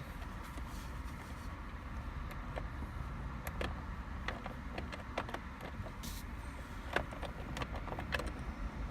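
Scattered light clicks and taps from hand tools and plastic steering-column trim being worked on, over a steady low rumble.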